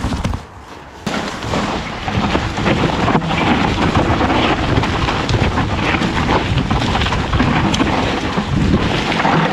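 Mountain bike riding down a rough trail: wind rushing and buffeting on the camera microphone, with the rattle and crackle of the bike and tyres over the ground. It starts suddenly about a second in.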